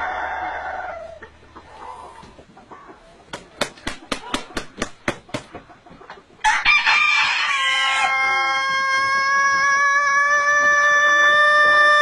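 Rooster crowing: the tail of one crow fades out in the first second, then a quick run of about ten sharp wing claps, then a loud, very long crow starts suddenly about six and a half seconds in and is held on one steady pitch.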